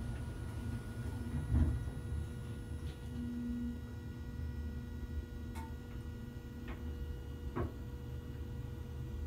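Low steady hum of room tone, with a few faint scattered clicks and a brief low tone a little after three seconds in.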